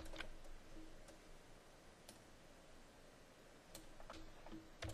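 A few faint, isolated clicks from the computer's keyboard and mouse buttons, about one a second, over quiet room tone.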